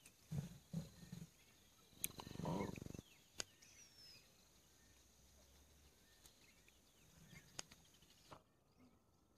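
Lions greeting at close range: a few short low grunts, then a louder, buzzy, pulsing growl lasting about a second, with a few faint clicks in between.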